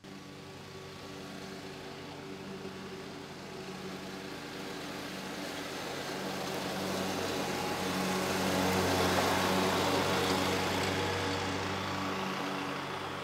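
Zero-turn riding mower running while mowing, a steady engine hum that grows louder as it approaches, loudest about nine seconds in, then eases off slightly.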